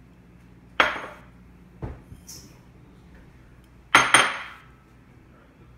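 Small ceramic bowls clinking as they are set down on a stone countertop: a few sharp clinks about a second in, then a louder double clink near four seconds, each ringing briefly.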